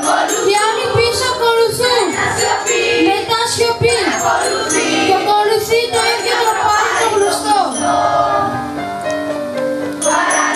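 A choir of schoolchildren singing a song together.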